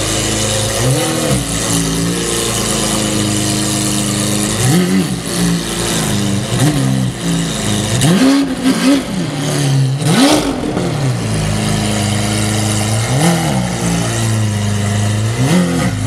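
Lamborghini Aventador Roadster's V12 through an IPE Innotech valved exhaust, idling and blipped repeatedly with short throttle stabs, each rev rising and dropping straight back to idle. The revs bunch up in the middle, the biggest about ten seconds in, with sharp pops from the exhaust between the blips around then.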